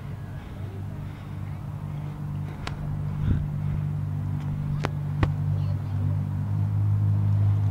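Steady low rumble of a bicycle ride, growing louder, with a few sharp clicks and knocks from the bike as it rolls off the grass onto pavement.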